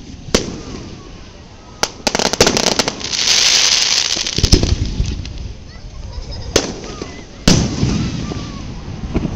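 Aerial fireworks bursting overhead: about half a dozen sharp bangs spaced a second or two apart. A quick run of crackling comes about two seconds in, followed by a loud crackling hiss for a second or so.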